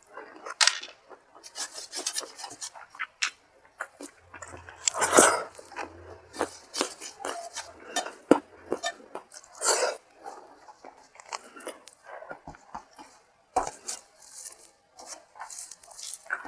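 Close-up eating sounds from a meal of rice and ilish fish curry: food being worked on a plate, with scattered clicks and light clinks against the dish and some chewing.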